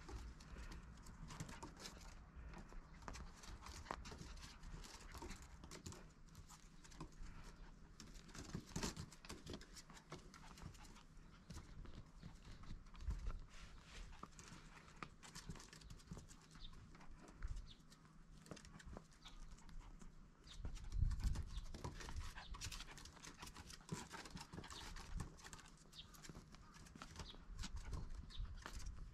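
A toy poodle puppy's paws and claws tapping and scrabbling on a wooden deck as it tussles with cloth and plush toys: faint, irregular clicks and taps, with a low rumble about two-thirds of the way through.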